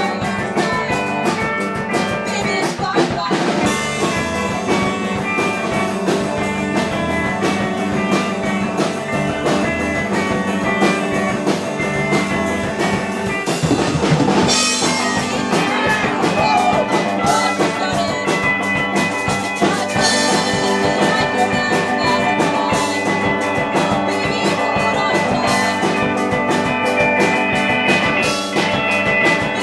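A rock band playing live: electric guitars over a steadily hit drum kit.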